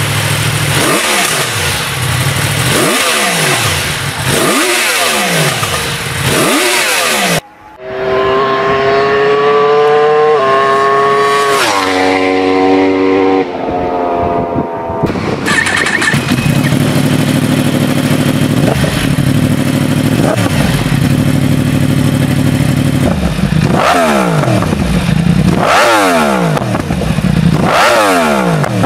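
Yamaha YZF-R1 (RN32) inline-four with an Akrapovic exhaust, revved again and again at first, each rev climbing and falling away. Then it accelerates hard, its pitch stepping up and down through the gear changes, before running more steadily. A new burst of quick revs comes near the end.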